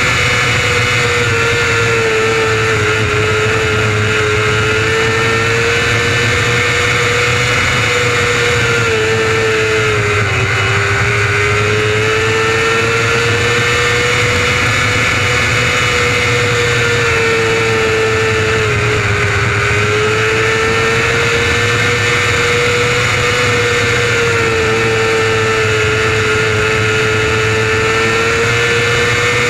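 600cc restricted micro sprint engine running hard at high revs. Its pitch holds nearly steady but dips briefly twice, about eight or nine seconds apart.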